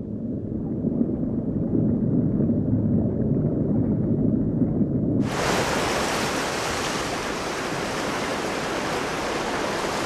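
Muffled underwater water ambience for about five seconds, then a sudden cut to the steady hiss of ocean surf breaking along a shore.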